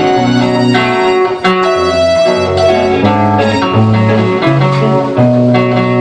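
Rock band playing live: electric guitars, bass guitar, keyboard and drums, with the bass line stepping through held notes and regular drum hits.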